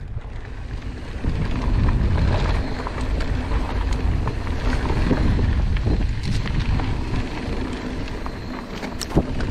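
Mountain bike rolling fast over a rocky dirt trail: tyre and trail noise under heavy wind rumble on the camera microphone, with a few sharp clicks and knocks from the bike over the bumps.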